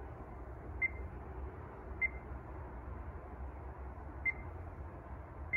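Icom ID-5100 transceiver's touchscreen keypad beeping as digits are tapped in. There are four short, identical high beeps at uneven intervals, each one confirming a key press, over a low steady hum.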